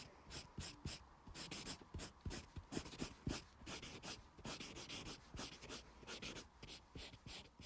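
Broad tip of a dual-tip colour marker rubbed in quick, short strokes close to the microphone, about three strokes a second, as blush colour is laid on.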